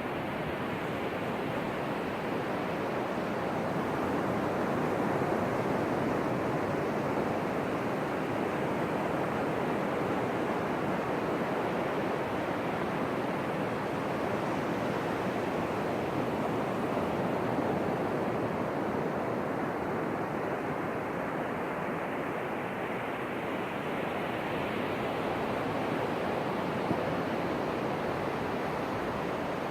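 Ocean surf breaking and washing on a beach, a steady rushing noise that swells and eases gently, with some wind on the microphone.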